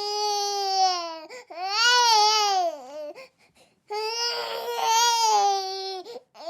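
Baby crying in long, high wails, each lasting one to two seconds, with a short pause for breath about three seconds in and a new wail starting near the end.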